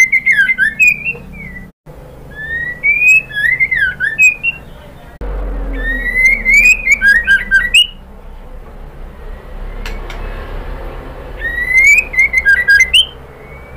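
Female white-rumped shama calling in four loud phrases, each a rising whistle that breaks into quick chattering notes, the third the longest. A steady low hum sits under the second half.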